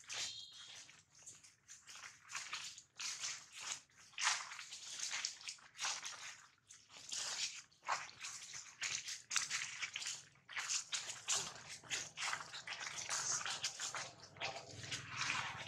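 Dry leaf litter crackling and rustling in many short, irregular bursts as macaques move and shift about on it.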